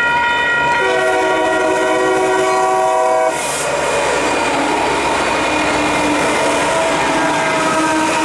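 Union Pacific SD70M locomotive's air horn sounding for the grade crossing: a short break just under a second in, then a long blast whose chord drops in pitch as the lead unit passes a little over three seconds in. After that the locomotives and freight cars rush by with the clatter of wheels on the rails.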